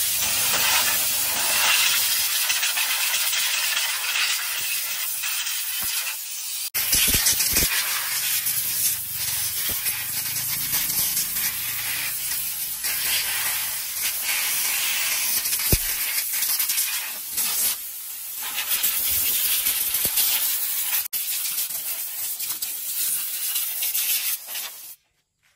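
Pressurised spray hissing in long, uneven bursts as parts of a worn-out clutch are sprayed clean, with a few dull knocks. It stops abruptly near the end.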